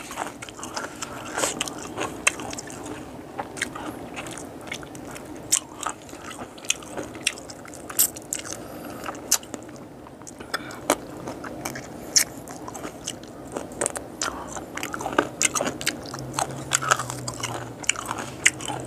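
A person chewing boiled frogs close to the microphone, with many irregular sharp crunches and clicks as the small bones are bitten.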